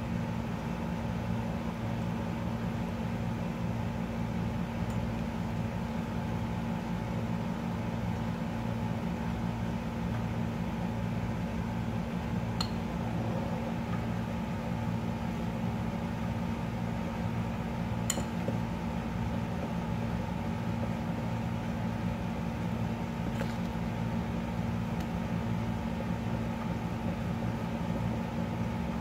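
Steady low machine hum, with three faint clinks of a metal spoon against a glass mixing bowl as thick idli batter is beaten by hand.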